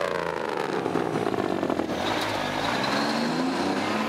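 Diesel engine of a semi tractor driving past, running without a trailer; its engine note slides down in pitch during the first second, then climbs again from about halfway through as the truck goes by.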